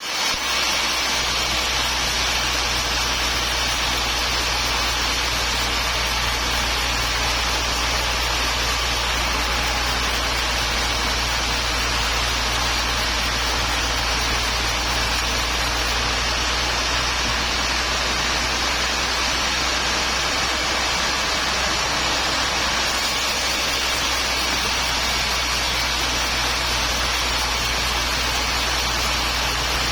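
Sawmill machinery running steadily: a constant motor hum under a continuous hiss, with no breaks.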